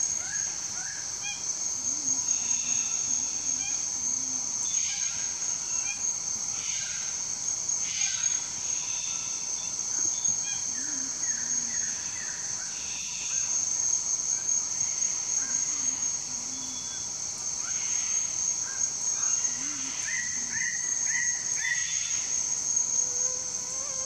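A steady, high-pitched insect chorus drones throughout, with several short series of rapid bird calls breaking in near the start, in the middle and again toward the end.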